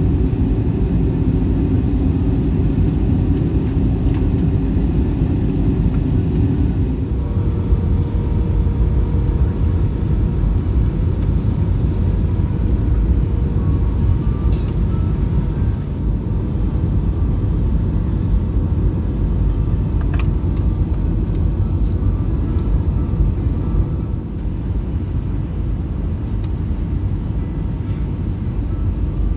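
Steady engine and airflow rumble of an Airbus A320-200 as heard inside the cabin during the descent, with a hum above it that changes pitch about seven seconds in. The overall noise eases slightly twice, around the middle and again near the end.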